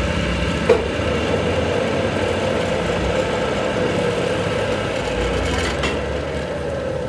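Machinery running steadily with an even hum, and a single sharp click under a second in.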